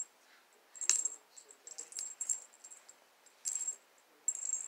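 Small bell on a cat toy jingling in short irregular bursts as a cat bats at the toy.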